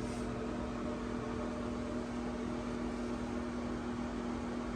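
Steady mechanical hum with one strong low tone and a little hiss, unchanging throughout.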